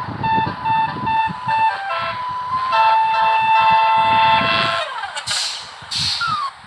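Basuri bus's telolet multi-tone air horn playing a tune: a run of short beeping notes, then a long held chord whose pitch sags as it dies away. Two short hisses of air follow.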